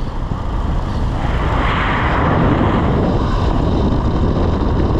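A vehicle travelling at speed: steady engine and road rumble mixed with wind noise.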